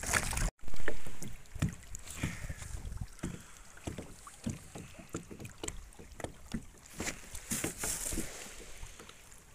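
Water lapping against a plastic kayak's hull, with many light irregular knocks and taps. There is a brief gust of wind on the microphone about a second in.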